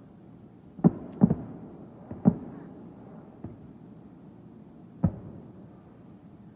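Fireworks shells bursting in the sky: a series of dull booms, several in quick succession in the first couple of seconds, then a faint one and a last one about five seconds in.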